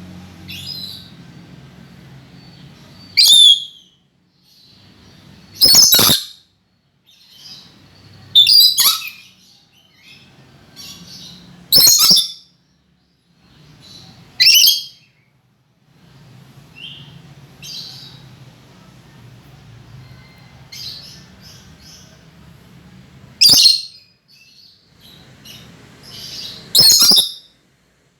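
Lory (nuri parrot) calling: about eight loud, sharp, short high calls a few seconds apart, with softer chattering between them.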